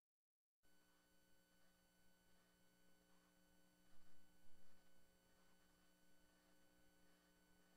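Near silence: a faint steady hum, with a few faint brief sounds about four to five seconds in.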